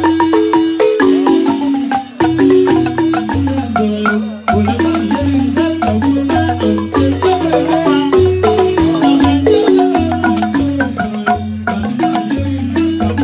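Senufo balafon, a wooden xylophone, played fast with mallets: quick repeating melodic phrases over deep bass notes. There are short breaks about two seconds in and again about four and a half seconds in.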